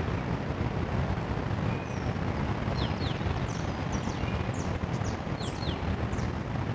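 Steady low outdoor rumble, with small birds giving short, quick, downward-sliding chirps again and again from about two seconds in.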